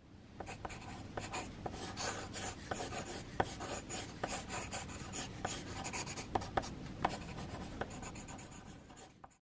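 Pencil sketching on paper: quick, scratchy back-and-forth strokes with a few sharper ticks as the lead touches down, stopping abruptly near the end.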